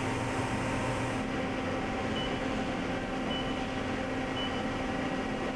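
Southwestern Industries FHM 5 CNC mill's AC servo motors and ball screws running a rapid traverse: a steady machine hum with a few steady tones. Three faint short high beeps come about a second apart in the middle.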